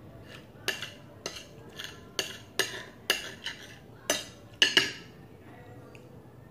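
Metal cutlery clinking and scraping against a ceramic plate while eating: about ten sharp clinks in quick succession, the loudest two near the end.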